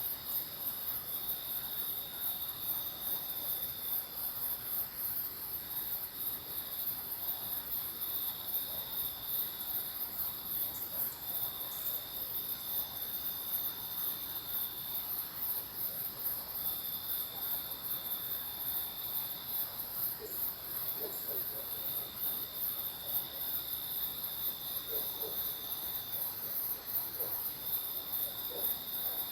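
Night insects in the forest, crickets among them: a steady, fast-pulsing high chirring, with a second insect's buzzing tone that starts and stops every few seconds.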